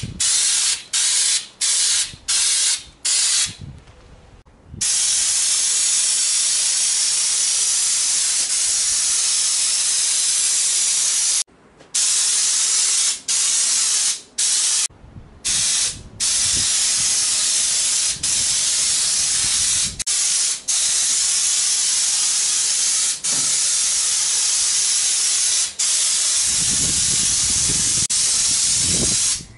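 Air-fed spray gun spraying Raptor Liner bed-liner coating, a loud steady hiss. It starts as a run of short trigger pulls in the first few seconds, then goes to long continuous passes broken by brief pauses.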